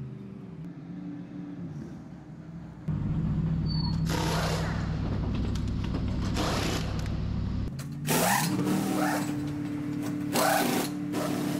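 Pneumatic wheel guns in a racing pit-stop tyre change, firing in four short loud bursts about every two seconds. Under them runs a steady low hum that comes in suddenly about three seconds in.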